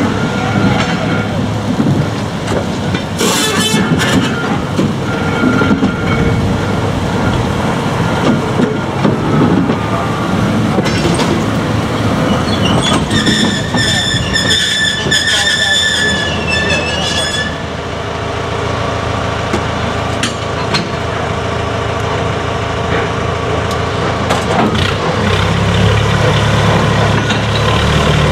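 A rake of goods wagons and a diesel rail crane rolling along the track with a steady rumble of wheels. A high-pitched wheel squeal comes briefly a few seconds in and again for several seconds around the middle. Near the end the crane's diesel engine running steadily grows louder.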